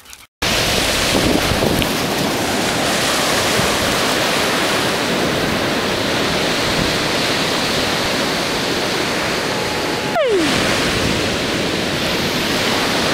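Wind buffeting the microphone over ocean surf, a loud, even rush with no letting up. About ten seconds in, a short tone slides down in pitch.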